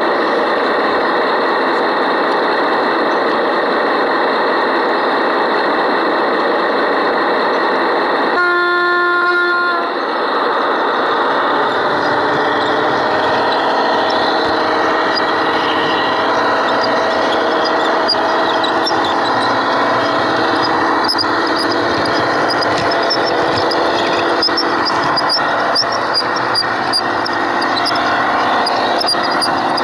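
Garden-scale model train running with a steady mechanical noise. A single horn note sounds for about a second, about eight seconds in. In the second half, rapid light ticking comes in as the train moves along the track.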